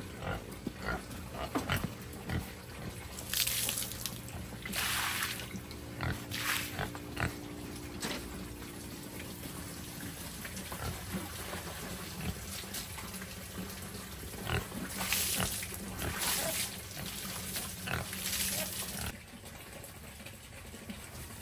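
Sows grunting in their pen, with several short, harsh noisy bursts a few seconds in and again in the second half, among scattered small clicks and knocks.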